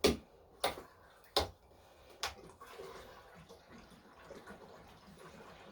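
Four sharp clicks and knocks in the first two and a half seconds, then a faint steady pour of gasoline from a fuel can into a Craftsman snowblower's tank as it is topped off.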